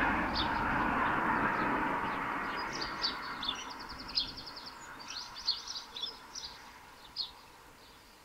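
Small songbirds chirping and twittering in short high notes, with one quick run of rapid repeated notes about halfway through. Under them, a steady rushing noise fades away over the first three seconds.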